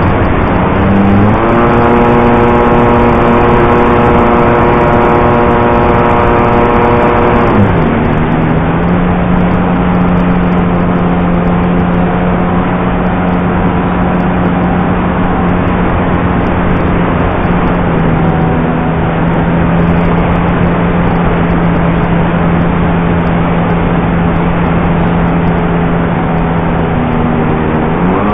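Single-cylinder DA-50 two-stroke gasoline engine of a 25% scale clipped-wing Cub RC plane, heard close up from onboard over a steady rush of air. It opens up about a second in, throttles back about eight seconds in and runs steadily at the lower setting, then opens up again near the end.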